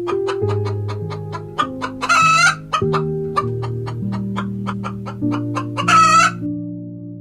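Chicken clucking in a quick, even run, with two louder drawn-out calls, over background music of held low notes.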